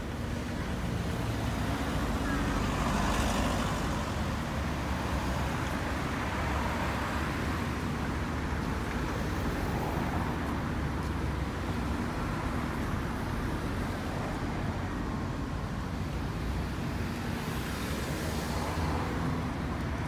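City street traffic: a steady wash of road noise, with vehicles passing close, one swelling about three seconds in and another near the end.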